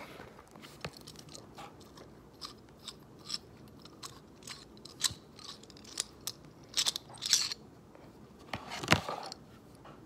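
Scattered small clicks and scrapes of a metal 6-in-1 hammer multi-tool being taken apart by hand, its handle sections twisted and pulled from one another, with a sharp click about nine seconds in.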